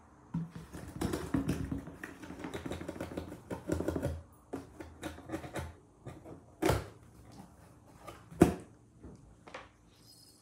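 Cardboard box being handled by hand: several seconds of rapid scratchy crackling and rustling of cardboard, then two sharp knocks on the box about a second and a half apart, the second the louder.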